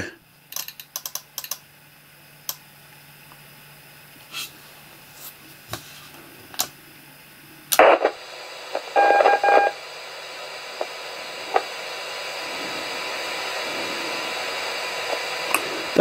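Yaesu FT-817 transceiver: its channel-select knob clicks as it is turned, then a short beep comes through its speaker. After the beep comes a steady hiss of received repeater signal that slowly grows louder, with faint high whines in it, the whining noise this radio has been letting through.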